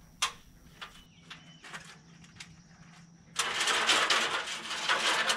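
Power sander starting up and running against a boat's painted topsides, sanding back oxidized polyurethane paint: a harsh, even rasp for about two seconds near the end, after a few light knocks.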